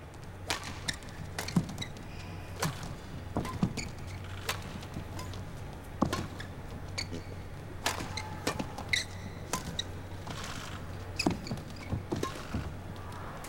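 Badminton rally: rackets striking the shuttlecock in sharp cracks at irregular gaps of about a second, with shoes squeaking on the court and a steady low hum underneath.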